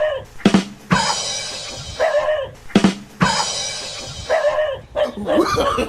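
Background music with drum hits, a short phrase repeating about every two seconds, and a wavering pitched sound near the end.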